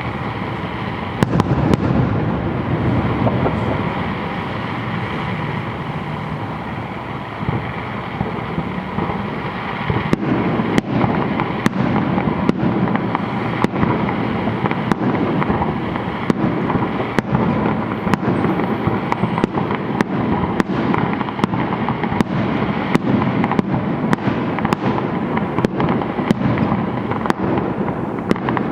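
Fireworks display: a continuous run of bangs and crackles over a steady din, growing busier and louder about ten seconds in.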